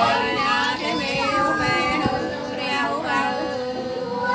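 Women singing sli, the Nùng folk song of Lạng Sơn, unaccompanied, in long held notes that slide between pitches.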